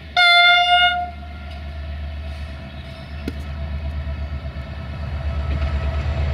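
Diesel locomotive horn, a GM class 64 diesel-electric, sounding one short single-note blast of about a second. After it comes the low rumble of the locomotive's diesel engine, growing steadily louder as the train approaches.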